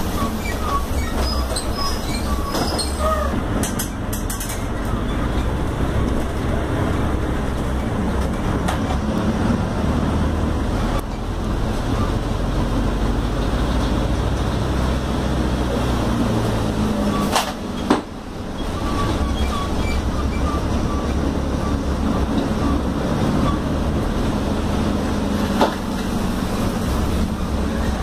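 Mercedes-Benz OF-1721L city bus on the move, heard from inside: steady diesel engine and road rumble with body rattles, a sharp knock about 17 seconds in and a smaller one near the end.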